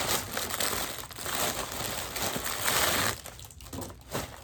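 Packaging crinkling and rustling as a batch of necklaces is handled, busiest for about the first three seconds and then dying down to a few light rustles.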